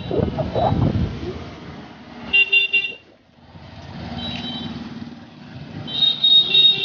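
Street traffic with vehicle horns honking: a short honk about two seconds in and a longer one near the end, over a steady traffic hum.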